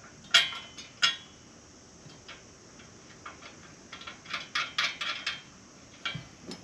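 Hand tools and steel sled parts clinking and clanking during bolt-together assembly: two sharp clanks in the first second or so, then a quick run of lighter metal clinks about four to five seconds in.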